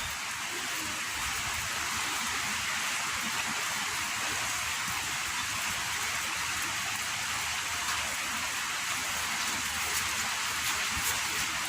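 Steady rain falling, an even hiss with a few sharper drops ticking near the end.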